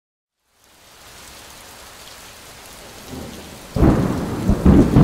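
Thunderstorm: rain hiss fades in about half a second in and falls steadily, then a loud, rolling rumble of thunder breaks in near the end.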